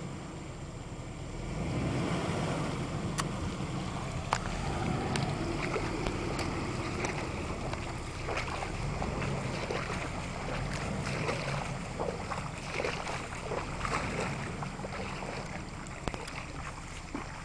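An off-road vehicle driving in a creek: the engine runs with water rushing and splashing around it, stronger from about two seconds in, with many sharp knocks and ticks.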